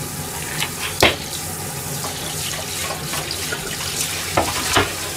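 Water running from a kitchen tap into a stainless steel sink, with a few sharp knocks and clinks of a metal bowl of clams, the loudest about a second in and two more near the end.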